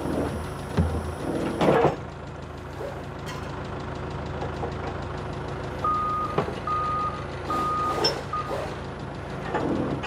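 A forklift's reversing alarm beeps four times about six seconds in, over an engine idling steadily, with a few metal clanks from the fifth-wheel rigging.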